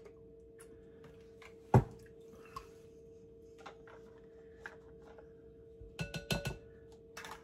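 Kitchen utensils knocking against a mixing bowl: a sharp knock about two seconds in, a few light taps, then a quick run of wire whisk clinks against the bowl near the end, over a steady low hum.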